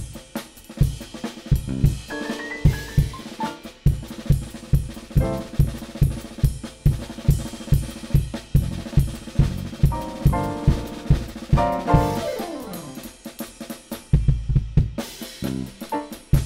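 Ludwig drum kit played hard in a jazz drum break: kick drum, snare and cymbals at a steady driving pulse, with bass and keyboard notes sounding under it in places and a falling run of notes about twelve seconds in.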